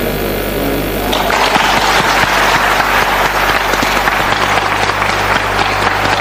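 Deputies applauding in the assembly hall: dense applause breaks out about a second in and carries on, greeting the close of the roll-call vote. A steady low mains hum from the old recording runs underneath.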